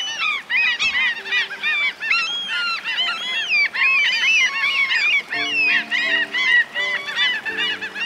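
A flock of gulls calling, with many short overlapping cries coming thick and fast throughout.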